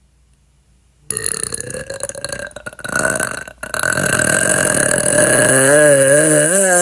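A woman's long, drawn-out burp starting about a second in, with a brief break partway through. It ends in a low pitched tone that wavers up and down.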